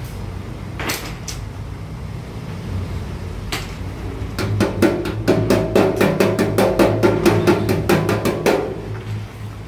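A small hammer tapping fast on a sheet-metal patch soldered over a fuel tank hole, about six or seven light ringing taps a second for about four seconds, after a few single taps earlier. A steady low hum runs underneath.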